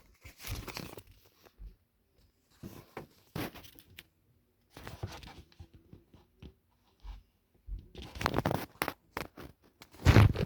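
Irregular bursts of rustling and crinkling with sharp clicks and knocks, separated by short quiet gaps, as objects are handled and moved about close to the microphone; the busiest stretch comes near the end.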